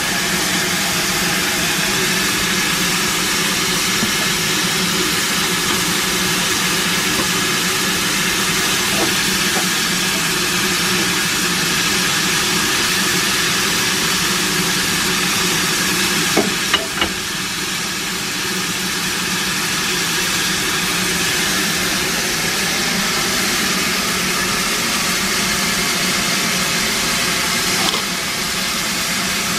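Steam locomotive standing at a platform with a steady, loud hiss of escaping steam. A few brief knocks come about two-thirds of the way in, and the hiss drops slightly near the end.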